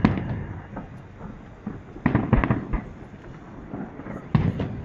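Aerial fireworks shells bursting overhead: a bang at the start, a quick run of several bangs about two seconds in, and another bang near the end.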